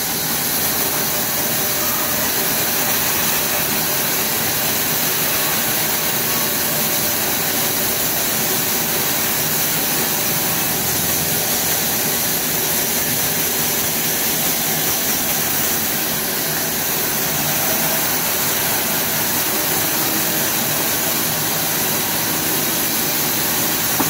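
Large sawmill band saw running and sawing through a wood slab pushed along its blade: a steady, unbroken machine noise with a strong high hiss.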